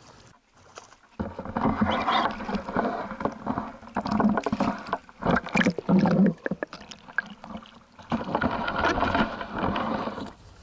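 Water splashing and sloshing in choppy bursts as a hooked carp thrashes in the shallows during landing, starting about a second in, with a second loud spell near the end.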